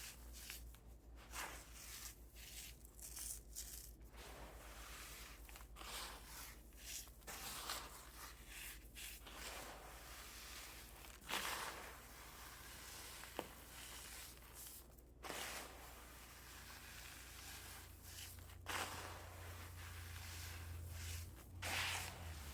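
Brittle reformed cornstarch crunching and crumbling as it is crushed: a string of crisp, irregular crunches with short pauses between, two louder ones about halfway through and near the end.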